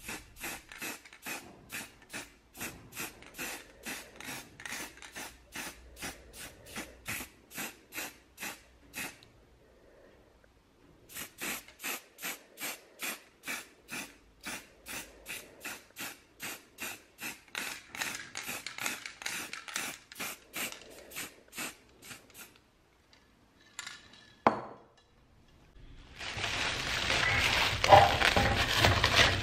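Aerosol spray-paint can fired in short, rapid bursts, about three hisses a second, in two long runs with a pause between them. Near the end, a louder crinkling of plastic film being pulled off painted plastic parts.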